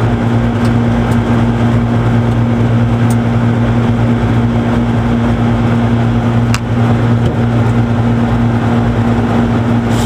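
A steady low machine hum, with a couple of sharp clicks about three seconds and six and a half seconds in.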